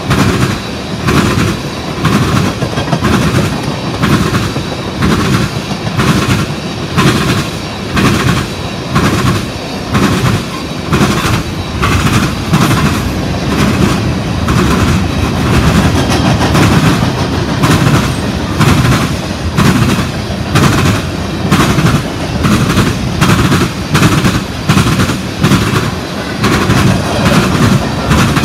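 Freight train of tank cars rolling past close by, its wheels clacking over the track in a steady, rapid clickety-clack rhythm over a continuous rumble.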